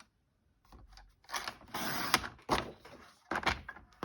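Card stock and craft tools being handled on a desk: paper sliding and rustling, followed by a few light clicks and knocks.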